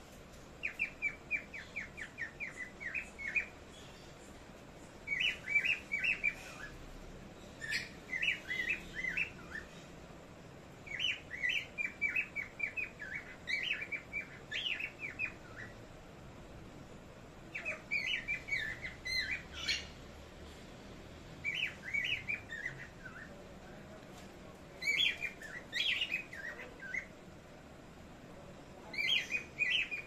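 Small pet parrots chirping: repeated bursts of quick, high chirps, each burst a second or two long, with short pauses between them.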